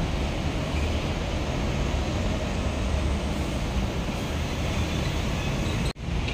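Steady road-traffic rumble from passing buses, trucks and cars, dropping out for an instant near the end.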